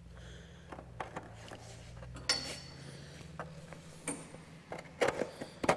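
Light metallic clinks and knocks from a steel car fender and the gas-cap housing set into it being handled and shifted: a sharp clink a little over two seconds in and a cluster of louder knocks near the end.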